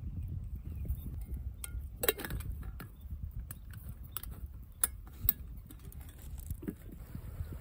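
Scattered light clicks and clinks over a low steady rumble, with the loudest pair a little after two seconds in.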